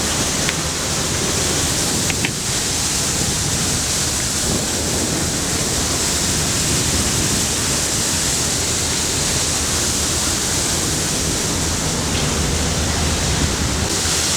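Steady, loud rushing of ventilation air through a mine tunnel, driven by a VOD-40 axial mine fan, with a low steady hum beneath it.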